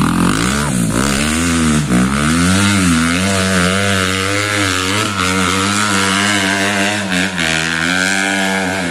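Dirt bike engine revving hard as it climbs a muddy slope. The pitch rises and falls with the throttle for the first few seconds, then holds a steady high rev and eases off slightly near the end as the bike moves away.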